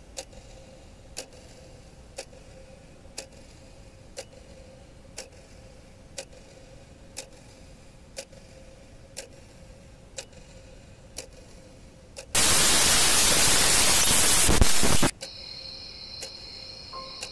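Clock ticking about once a second over a faint steady hum, then a loud burst of hissing static for about three seconds that cuts off sharply, followed by soft chiming music.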